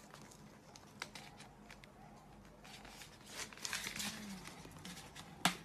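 Faint rustling and light knocks as cardboard potato-chip cans are handled, busier a little past halfway, with one sharp click near the end.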